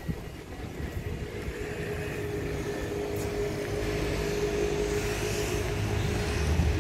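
City street traffic: a motor vehicle running close by with a steady hum, growing louder toward the end.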